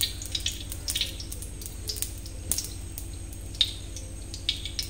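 Cooking oil poured into a hot iron kadhai, then crackling with scattered small pops as it heats in the pan.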